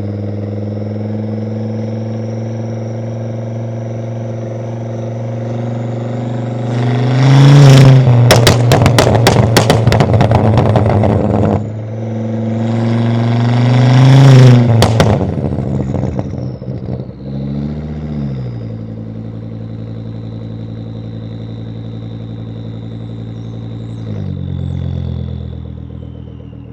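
Volvo S60 2.5T turbocharged inline-five with a catless exhaust, idling and then revved twice. Each rev is followed by a burst of rapid pops and crackles as the throttle closes. Two shorter blips follow before it settles back to a steady idle.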